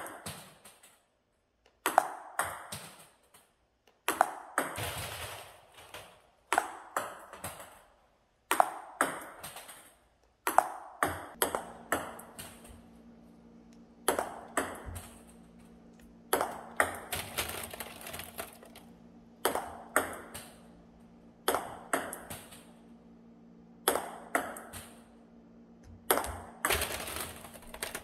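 Table tennis ball clicking off a paddle and the table, in short runs of a few hits about every two seconds, as in backhand push practice. A steady low hum joins about eleven seconds in.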